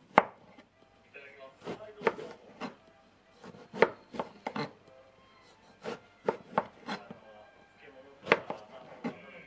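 Chef's knife slicing Japanese eggplant on a white plastic cutting board: about a dozen sharp, unevenly spaced knocks as the blade cuts through and strikes the board.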